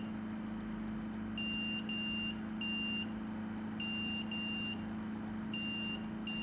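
HIFU machine beeping as its touchscreen energy setting is stepped up: short high beeps in runs of two or three, over a steady low electrical hum.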